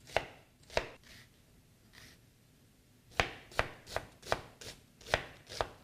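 Knife dicing an onion. Two chops, a pause of about two seconds, then a run of about seven quicker chops.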